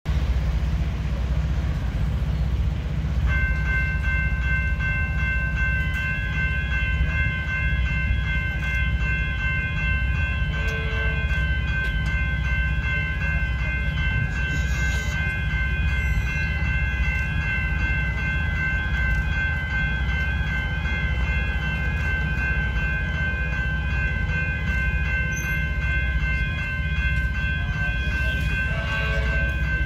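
Railway level crossing warning bells start about three seconds in and then ring steadily, signalling that a train is approaching. A steady low rumble runs underneath.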